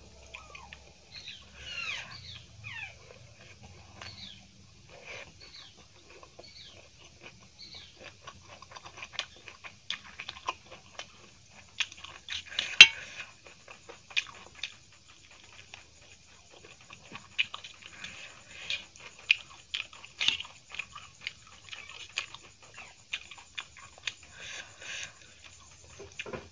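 Close-up eating sounds from a person eating gobi pakoda and Maggi noodles: wet chewing and crunching with many small mouth clicks. There are a few short falling squeaks in the first several seconds and a sharp click about halfway through.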